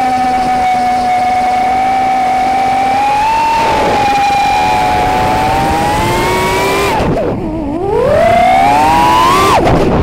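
Racerstar BR2205 2600KV brushless motors of an FPV racing quadcopter whining, recorded through the onboard Runcam 3's microphone. The whine holds steady and climbs a little about three and a half seconds in. It falls sharply about seven seconds in, then rises again and falls sharply near the end as the throttle changes.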